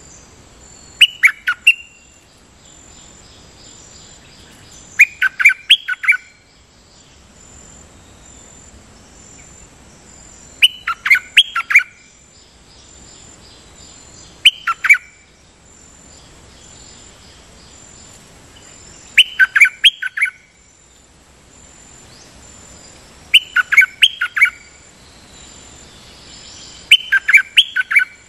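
A caged decoy bird (Thai นกดอกแตง) calls in short phrases of several quick clear notes, seven times at intervals of about four to five seconds. A faint steady insect drone runs underneath.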